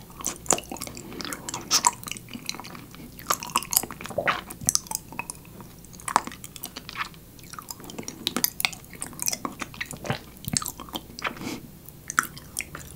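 Close-miked chewing of a mouthful of raw whole honeycomb, with many irregular clicks and smacks.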